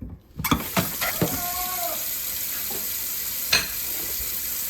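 Kitchen sounds: a steady hiss that starts suddenly about half a second in, with a few sharp clinks of kitchenware, one of them near the middle.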